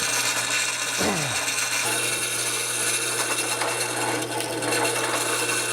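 Craftsman drill press running with a steady hum as the bit cuts into the workpiece.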